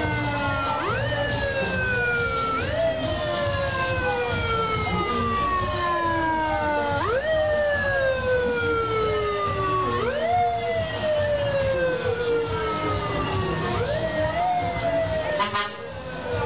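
Fire engine siren winding up sharply and sliding slowly back down, over and over every two to three seconds, the wails overlapping one another.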